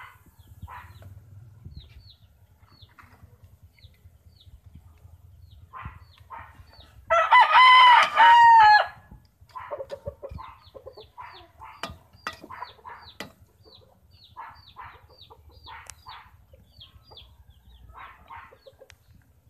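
A rooster crows once, loudly, about seven seconds in: one long call of about two seconds. Around it, short high chirps and brief clucks keep on.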